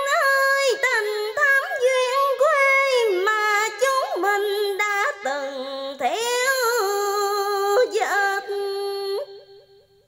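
A woman singing a slow, ornamented line of Vietnamese vọng cổ, her voice sliding and bending between held notes, with little accompaniment under it; the line ends about nine seconds in.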